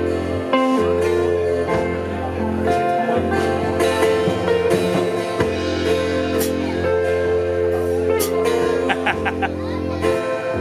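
Live band playing an instrumental passage: strummed acoustic guitar over a held low note.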